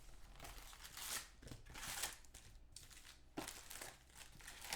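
Faint crinkling and tearing of packaging in several short bursts: trading-card boxes being unwrapped and opened by hand.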